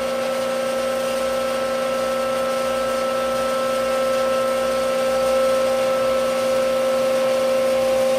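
LV1 Microfluidizer high-pressure homogenizer running with a steady, even-pitched motor hum, its pump holding the set process pressure.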